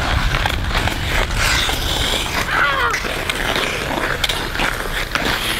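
Ice skate blades scraping and carving on an outdoor rink, a steady gritty scrape with short sharper strokes.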